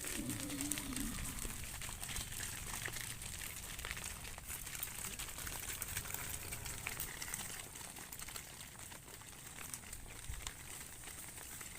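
A short low animal call in the first second, then faint calls around the middle, over steady crackling and rustling noise.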